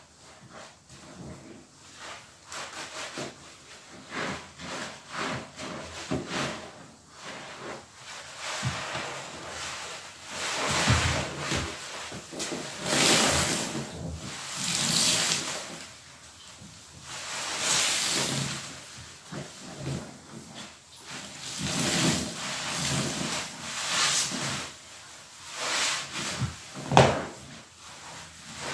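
Large foam sponges squeezed and wrung by hand in a tub of thick dish-soap suds: wet squelches and hissing foam, one squeeze every second or two, with a sharper squelch near the end.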